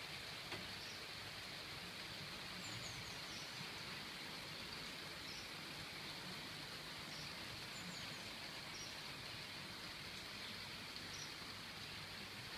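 Steady, even background hiss with a few faint, short high chirps scattered through it.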